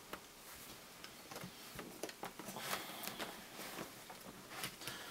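Faint, irregular clicks and taps of hands handling a laptop's plastic case and small screws.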